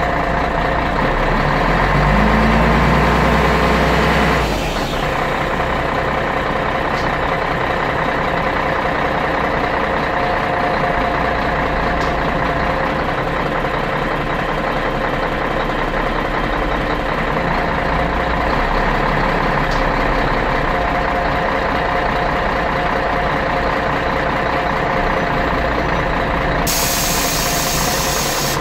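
Scania DSC 11.71 straight-six diesel of a 1997 Scania CN113CLL city bus running steadily, heard from inside the passenger cabin. A louder low rumble drops away suddenly about four seconds in, and a sharp hiss starts near the end.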